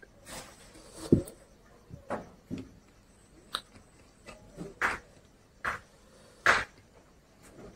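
A plastic bottle handled at a table: set down with a dull thump about a second in, then a string of short, sharp clicks and taps every half second to a second.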